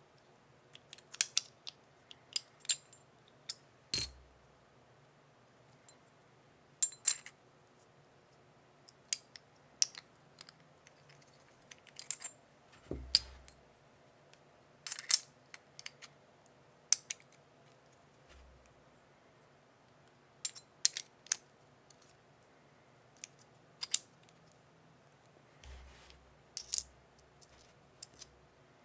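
Stainless steel gun-style cocking fidget slider being worked by hand: irregular sharp metallic clicks and clacks, often in quick clusters of two or three, with a few dull thumps.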